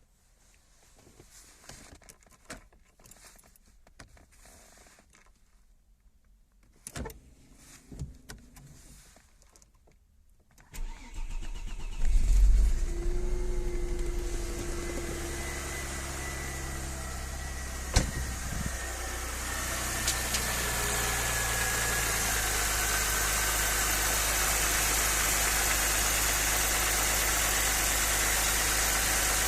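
A few faint clicks and handling noises. About a third of the way in, the Audi 100 C4's 2.6-litre V6 engine cranks and starts, flares briefly, then settles into a steady idle. One sharp click comes a little later.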